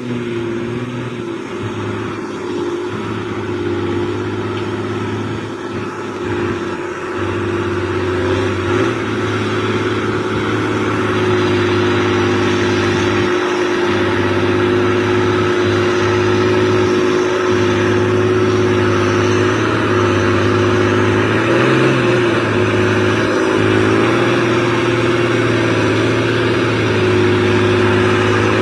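Heavy diesel truck engine working hard as it pulls a full load of logs uphill, a steady low drone that grows louder as the truck comes closer.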